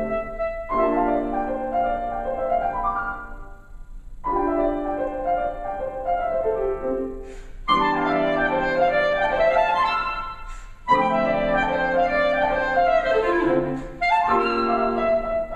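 Clarinet and piano playing contemporary classical music: clarinet melody lines over piano chords, in phrases broken by brief pauses.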